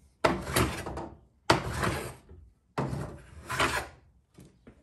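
Tools and contents being shifted about in an old toolbox: three scraping, sliding noises about a second long each, the first three seconds or so, then only faint small clicks.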